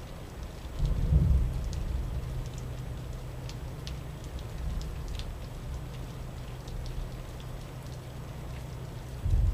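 Steady rain falling, with scattered drops ticking on nearby surfaces. Thunder rumbles briefly about a second in, and again right at the end.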